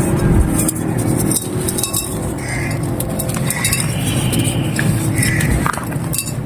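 Dry clay and broken clay-pot pieces crumbling and crunching, a dense run of crisp crackles and small clinks.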